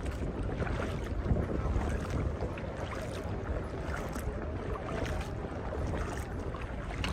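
Wind rumbling on the microphone over shallow sea water lapping, with a few small splashes.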